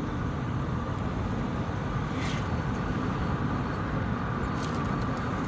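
Road and engine noise inside a moving car's cabin: a steady low rumble, with a couple of faint clicks.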